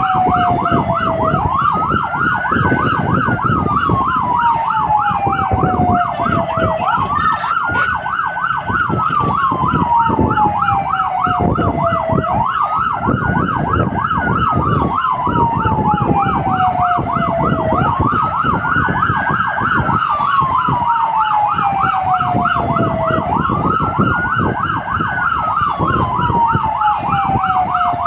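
Fire engine sirens on an emergency run, heard from inside the cab. A wail rises quickly and sinks slowly about every five and a half seconds over a second, fast yelping siren of about four cycles a second, with the truck's engine and road noise below.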